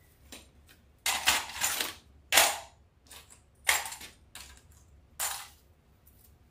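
Crinkly rustling of poly burlap deco mesh being handled, in four short bursts with quiet between them.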